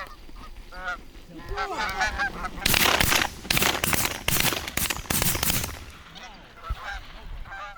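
Canada geese honking, then a rapid volley of shotgun blasts from several guns for about three seconds, with honking again near the end.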